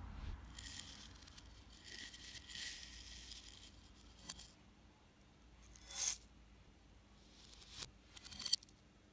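Dry chocolate rice cereal rustling and rattling as a metal spoon scoops it against a ceramic bowl, heard played backwards. A longer spell of rustling early on, a short, louder scrape about six seconds in, and two more near the end.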